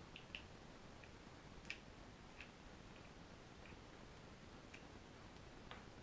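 Near silence with about half a dozen faint, scattered small clicks as an e-cigarette is handled.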